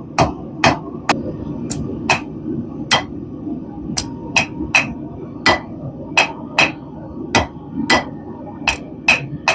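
Blacksmith's hammer striking steel stock on an anvil, about sixteen ringing blows at an uneven pace of roughly two a second, drawing the bar out into a point.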